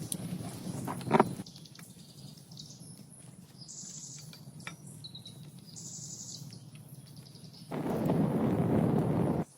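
Outdoor sound of short, high bird chirps in a quiet stretch. About a second in there is a sharp knock, and near the end comes about two seconds of loud, even rustling noise that cuts off suddenly.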